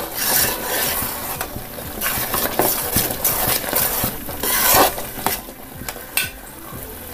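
Metal spatula stirring and scraping around a pot of thick, bubbling fenugreek lehyam, with the freshly added ghee sizzling. The stirring comes in uneven strokes and eases off in the last couple of seconds.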